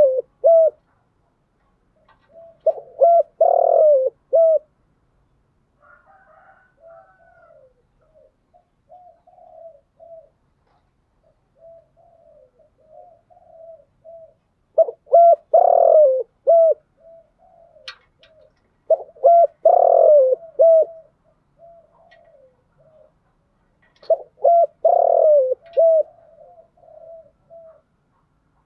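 Spotted dove cooing as a decoy call. Loud multi-note coo phrases come every few seconds, with strings of softer, quicker coos in the gaps.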